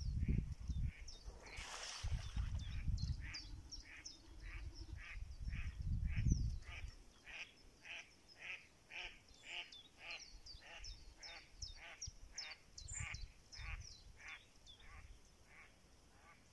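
Mallard-hen-style quacking: a long, even run of short quacks, about two a second, fading out near the end. Low rumbling is under the first several seconds.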